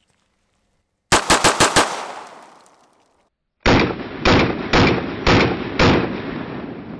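Sig Sauer P320 9mm pistol firing: a quick string of five shots about a second in, then, after a short gap, five more evenly paced shots about half a second apart, each trailing off.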